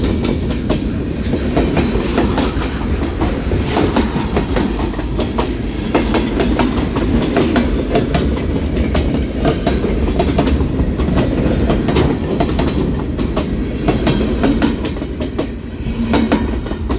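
Kansas City Southern freight train's cars rolling past at speed: a steady low rumble with wheels clacking over rail joints, fading near the end.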